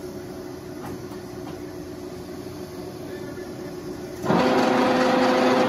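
1941 Monarch 12CK engine lathe running with a steady hum. A little over four seconds in, it jumps suddenly to a much louder, rougher running noise as a lever at the headstock end is thrown.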